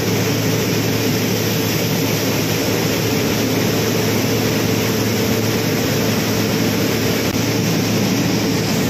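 Industrial mill machinery running with a loud, steady drone and a constant low hum.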